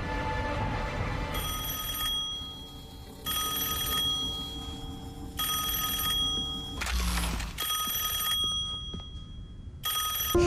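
Electronic ringing alarm tone sounding in short pulses about every two seconds, after fading music, with a brief loud hiss and thud near the middle.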